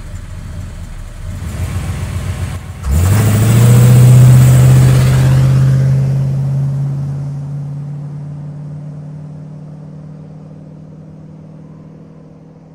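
Car engine rumbling, then revving up sharply about three seconds in; the raised engine note holds and slowly fades out.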